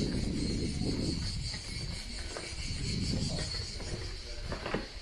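Insects chirring steadily at a high pitch, over a low, uneven rumble and a few faint clicks near the end.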